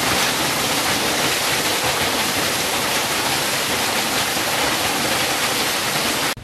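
Waterfall pouring onto rocks: a loud, steady rush of falling water that stops abruptly near the end.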